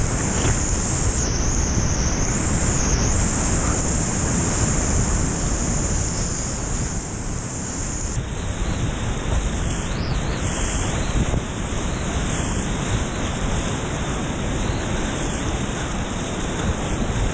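Whitewater rapids rushing and churning close around a kayak, with water and wind buffeting the kayak-mounted camera's microphone. The rush eases a little after about seven seconds.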